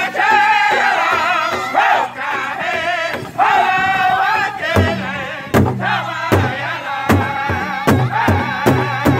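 Powwow drum group singing an intertribal song in high, wavering voices, several singers together, over a large powwow drum struck in unison. About halfway through, the drumbeats become much louder and deeper, falling in a steady beat under the singing.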